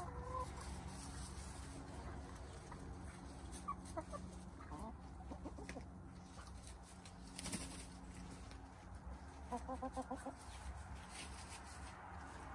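Domestic hens clucking as they forage. A few short calls come about four seconds in, then a quick string of about six clucks near the end.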